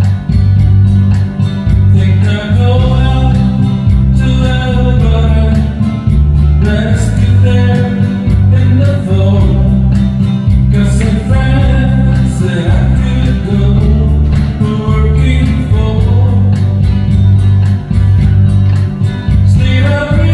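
Country-folk song with guitar and bass under a melody line that comes in about two seconds in.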